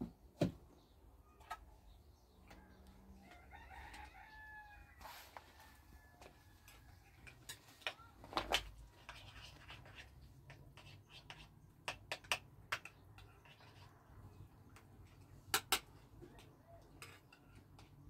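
A rooster crows once, faintly, about four seconds in, while spoons clink now and then against small bowls.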